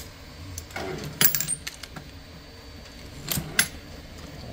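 Hornady progressive reloading press with a 3D-printed bullet feeder being cycled on .223: sharp metallic clicks and clinks of the mechanism and brass. The loudest cluster comes about a second in, with another pair of clinks a little past three seconds.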